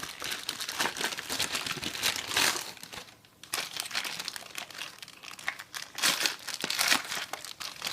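Packaging crinkling and rustling as a mailer and the package inside it are handled and opened, with a short lull about three seconds in and a few sharper crackles near the end.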